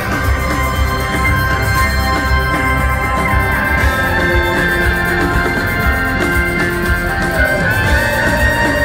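Rock band playing live through an arena sound system, an instrumental passage with drum kit, bass and keyboards under held, sustained notes.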